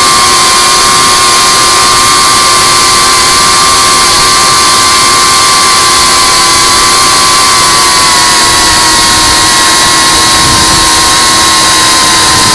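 FPV quadcopter's brushless motors and propellers whining steadily, picked up by the onboard camera, with a dense rush of noise over it. The whine's pitch sags slightly in the second half.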